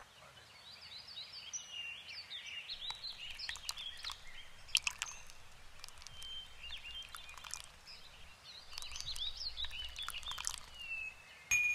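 Small birds chirping and twittering in quick, high calls, with several sharp clicks among them. A louder, steady high tone starts near the end.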